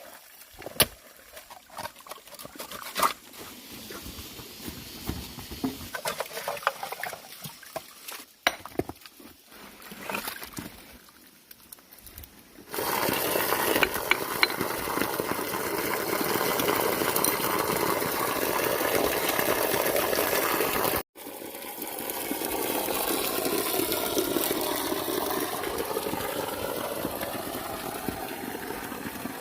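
Scattered light knocks and clinks, then from about 13 s in a steady rush of pouring, splashing water that cuts out abruptly about 21 s in and resumes a little quieter.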